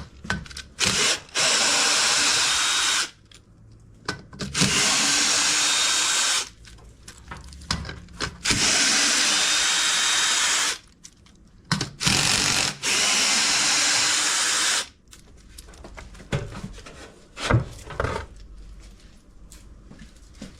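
Cordless screwdriver with a 10 mm socket running in four spells of about two seconds each, unscrewing the washing machine's counterweight bolts, with clicks and knocks of the socket and bolts between the runs.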